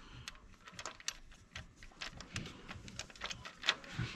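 Irregular light clicks and taps of hand tools and bolts as a valve-spring compressor tool is fastened onto the cylinder head.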